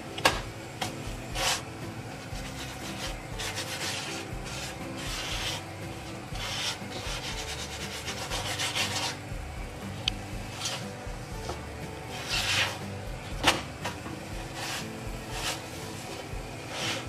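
Slotted spatula scraping and pressing a puran poli flatbread on a flat griddle (tawa): repeated rubbing, swishing scrapes with a sharp tap near the start and another about 13 seconds in.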